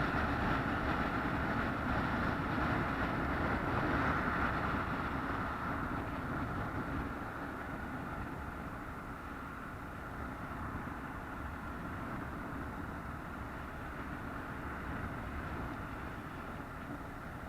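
Steady running noise of a moving vehicle, a continuous rumble and hum that slowly grows quieter through the first half and then holds.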